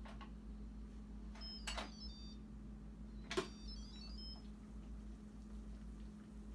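Stainless-steel Instant Pot lid being twisted free and lifted off: two sharp clicks, about two and three and a half seconds in, each followed by brief high metallic squeaks, over a steady low hum.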